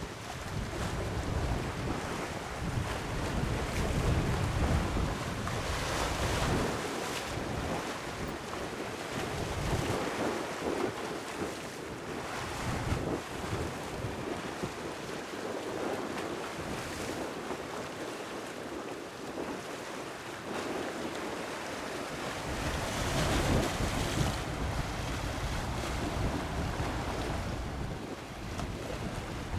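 Sea waves washing, with wind gusting across the microphone in low rumbling buffets that come and go.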